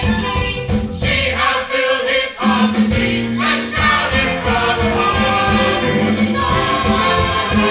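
Musical-theatre song with a choir singing over a band with a steady beat.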